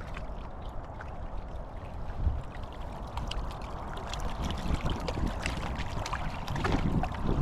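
Wind buffeting the microphone in an irregular low rumble, with scattered light crunches and clicks of footsteps on an outdoor path.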